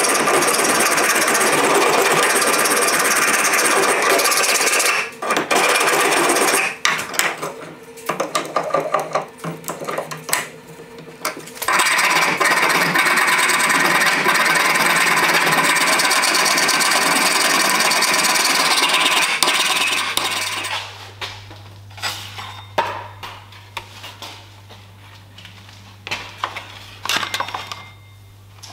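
A flat hand file rasping across a steel axe head held in a vise, at first in continuous strokes, then in shorter separate strokes with pauses, then continuous again. About two-thirds of the way through the filing stops, and a steady low hum with scattered light knocks follows.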